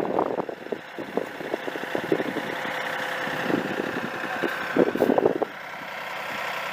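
Tractor engine running steadily, with irregular knocks and rattles over it for most of the first five and a half seconds, loudest a little before the end of that stretch.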